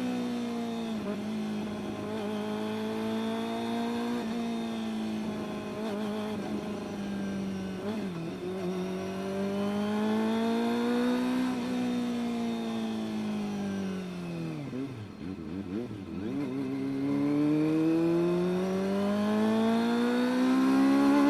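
Kawasaki ZX-25R's 250 cc inline-four engine running, its pitch rising and falling with the throttle. About fifteen seconds in it drops low, then climbs steadily toward the end.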